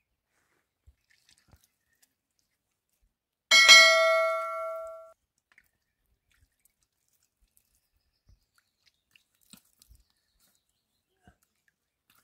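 A single bright ringing strike about three and a half seconds in, its ring dying away over about a second and a half; otherwise only a few faint ticks.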